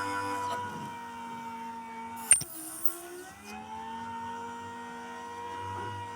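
Small electric motor of a homemade fishing-float lathe running with a steady whine. A single sharp click about two seconds in is the loudest sound, and right after it the pitch sags, then slowly climbs back.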